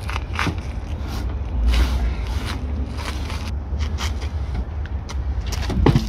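Scattered knocks and rustling from something being handled, over a steady low rumble, with a louder knock near the end.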